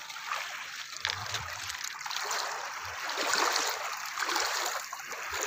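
Small waves lapping and trickling over a pebbly shoreline, a steady gentle wash of water.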